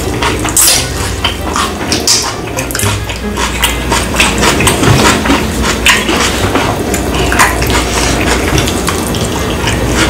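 Close-miked eating sounds of grilled fish eaten by hand: wet chewing and lip smacking, a steady run of irregular moist clicks.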